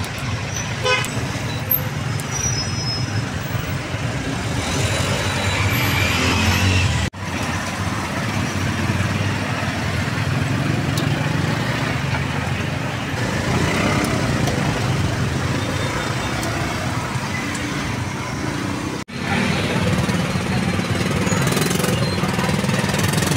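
Busy street ambience: traffic running steadily, with a short vehicle horn toot about a second in and voices in the background.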